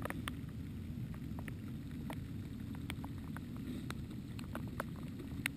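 An engine idles low and steady, with scattered sharp ticks of raindrops striking the camera housing.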